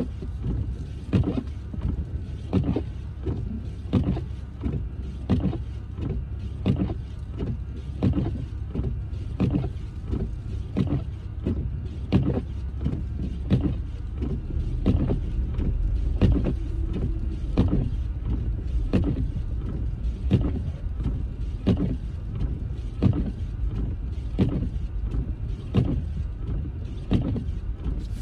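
Car windshield wipers running fast, sweeping snow off the glass, with a sharp beat at each stroke about three times every two seconds. Under them is the steady low rumble of the car driving.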